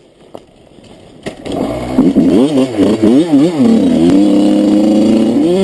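Enduro motorcycle engine starting about a second and a half in, revved up and down several times, then settling to a steady idle.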